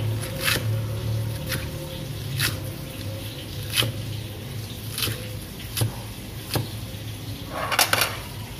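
Kitchen work sounds: sharp taps or knocks about once a second, with a quick cluster of them near the end, over a steady low hum.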